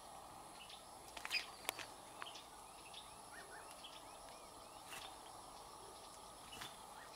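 Faint rural pond-side ambience: a steady hiss of insects with a thin, high, steady tone, small bird chirps here and there, and a few sharp clicks about a second in and again near five seconds.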